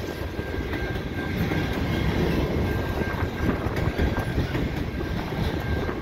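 Freight train cars rolling past, tank cars then centerbeam flatcars loaded with lumber, steel wheels rumbling and clacking over the rails.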